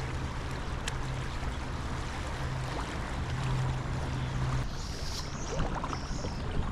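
Fast-flowing creek water rushing steadily, swollen with high water; the higher hiss eases a little about three-quarters of the way through.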